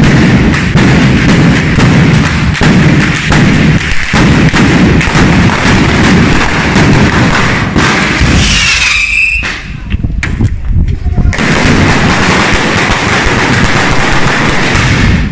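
A festival batteria, a long chain of firecrackers laid along the street, going off in a rapid, continuous crackle of very loud bangs. About eight seconds in the bangs thin to a few scattered reports with a short whistle, then the dense crackle picks up again.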